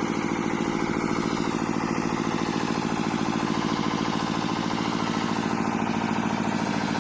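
Engine of a DJ sound rig's generator running steadily at idle, with a fast, even beat.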